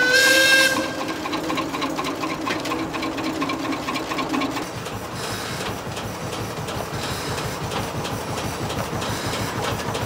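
Steam whistle blowing a steady chord that cuts off about a second in, with a lower tone lingering until about four and a half seconds in. Under it and after it, the sawmill's stationary steam engine runs with a steady rhythmic beat.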